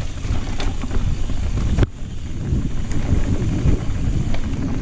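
Wind buffeting the GoPro microphone and a Santa Cruz Blur cross-country mountain bike's tyres rumbling down a rough dirt singletrack at speed, with small rattles and knocks from the bike. A sharp knock about two seconds in is the loudest moment.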